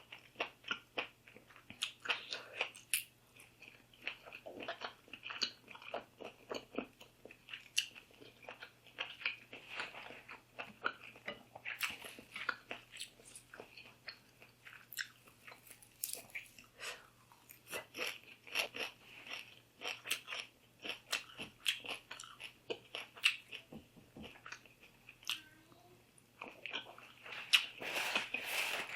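Close-miked chewing and biting: a person eating, with a steady run of crisp crunching clicks and a louder flurry near the end.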